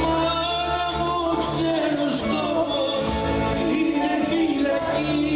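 Live performance of a Greek laïkó song: a man singing a melody over instrumental accompaniment.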